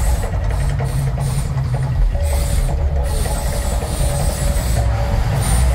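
The Mirage volcano eruption show: a loud, continuous low rumble with a steady hiss as flames burst from the peak and the gas fire shooters flare on the lagoon.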